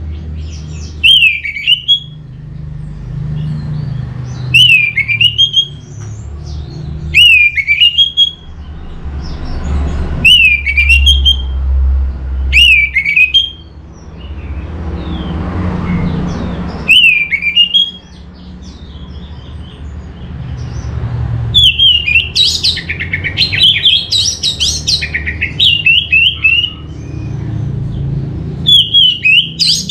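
Orange-headed thrush singing. Short whistled phrases that dip and rise come about every three seconds, then from about two-thirds of the way in a faster, busier run of song. A low steady rumble sits underneath.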